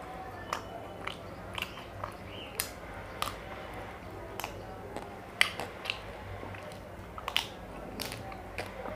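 Close-up mouth sounds of a man eating soft chocobar ice cream with bits of chocolate coating off a spoon: wet lip smacks and sharp clicks about twice a second, the loudest about five and a half seconds in and again near seven and a half.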